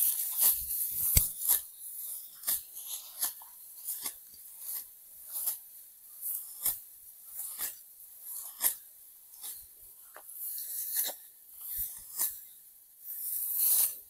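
Sickles cutting through dry, ripe rice stalks during hand harvesting: a short crunching rip about once a second, with a longer rustle of dry straw being gathered near the end.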